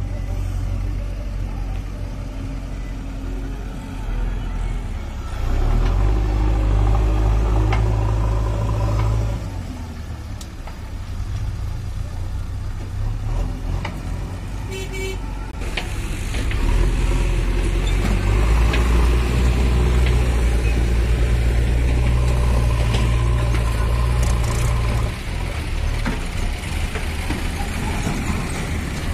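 Diesel engines of a JCB 3DX backhoe loader and farm tractors running, rising to higher revs for two long stretches as the loader lifts and dumps soil into a tractor trolley. A short horn toot sounds about halfway through.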